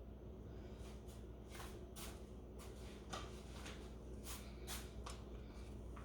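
Faint, scattered light clicks and rustles of hands handling food and kitchen things, about a dozen in a few seconds, over a low steady hum.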